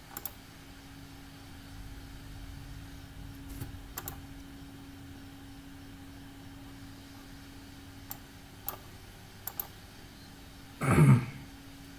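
Computer mouse clicks, single and in quick pairs, over a faint steady hum, with one short, louder burst of noise near the end.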